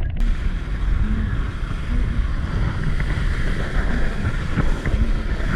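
Wind buffeting the microphone and water rushing under a wakeboard being towed across the water: a steady rushing noise with a heavy low rumble.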